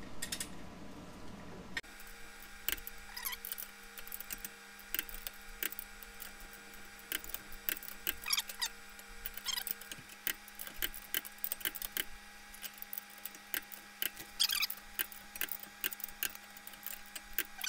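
Click-type torque wrench being worked on the lug nuts of a wheel spacer, giving scattered sharp metal clicks and knocks as the nuts are torqued down.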